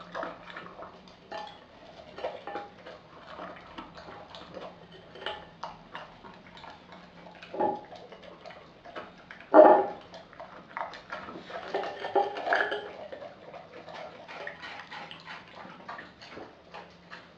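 Australian Kelpie eating a raw BARF meal from a glass bowl: irregular wet chewing and licking, with the glass bowl clinking and knocking against the tile as the dog pushes into it. The loudest knock comes about ten seconds in, with another cluster a couple of seconds later.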